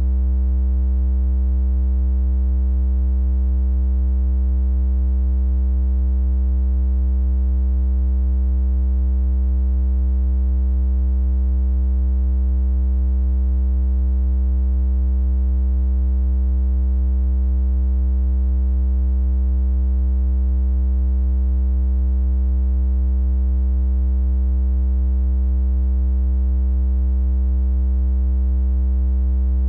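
Synthesised 64 Hz triangle-wave tone, a steady low hum held unchanged at one pitch with no breaks.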